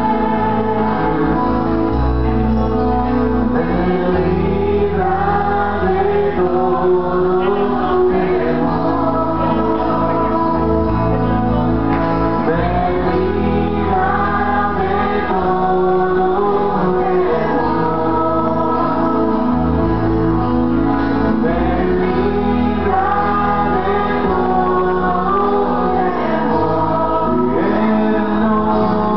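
A congregation singing a Christian worship song together, many voices over instrumental accompaniment with a steady bass line that changes note every second or two.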